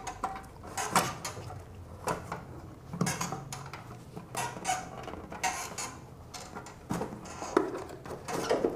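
Irregular clicks, knocks and rattles of a Honda CD70's air filter housing being worked loose by hand and pulled out of the frame.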